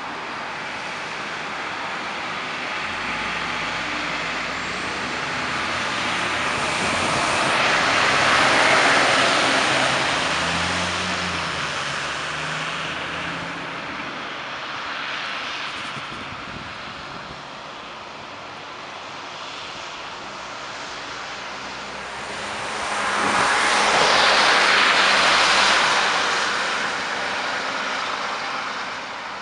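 Heavy diesel vehicles driving past on a wet road. A Peterbilt 337 rear-loader garbage truck's engine and hissing tyres swell and pass about eight seconds in, with its engine hum trailing off. A city transit bus makes a second swell of tyre hiss and engine about twenty-four seconds in.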